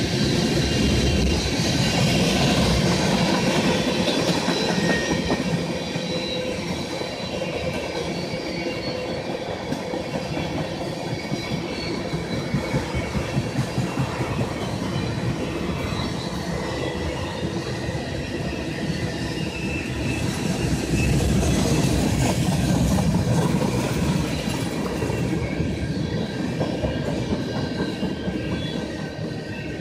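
Freight train tank cars rolling past: a steady rumble of steel wheels on the rails, with a run of rhythmic clicks over rail joints partway through and a thin high wheel squeal.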